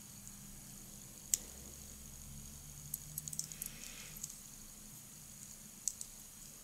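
Faint clicks and light rattles of the small plastic parts of a Xiaomi anti-stress toy being fitted together by hand: a single sharp click about a second in, a quick cluster of small clicks around the middle, and a couple more near the end.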